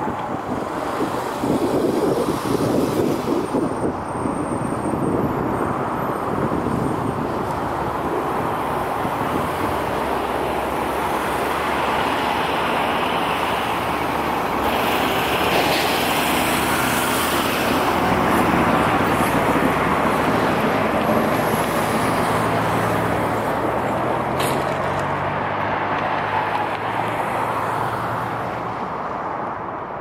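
A Boeing 777's twin jet engines on final approach and landing: a loud, steady roar that swells toward the middle, with low engine tones that slide gently down in pitch in the second half.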